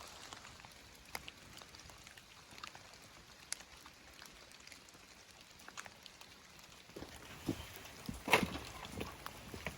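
Rain mixed with wet snow falling, with scattered drops ticking on surfaces over a faint hiss. A few louder knocks come near the end.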